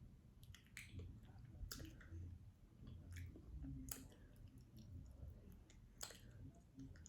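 Faint close-miked chewing of a mouthful of brisket and mac and cheese, with scattered wet mouth clicks about once a second.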